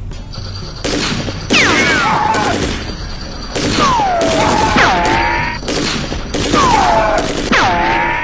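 Simulated machine-gun fire from a prank, in three long rapid bursts, with falling whistle-like tones over each burst.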